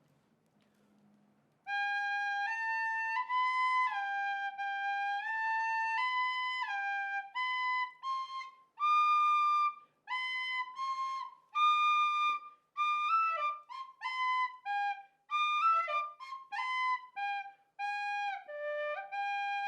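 A simple tune played on a small toy flute, starting about two seconds in. It begins with longer held notes and moves into quicker, shorter notes.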